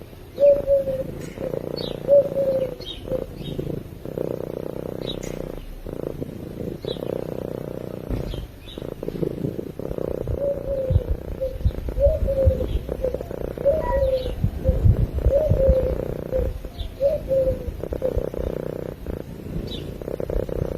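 Domestic cat purring steadily while asleep, a continuous low rumble. Short high chirps are scattered over it.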